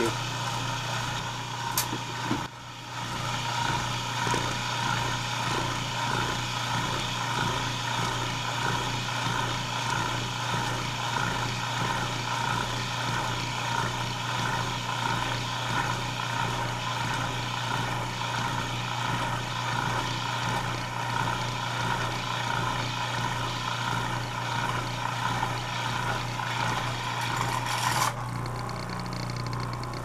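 Salvaged washing machine induction motor with a centrifugal clutch running steadily: a constant low hum with a whir above it. About 28 s in the sound changes abruptly, the higher whir dropping away while the hum carries on.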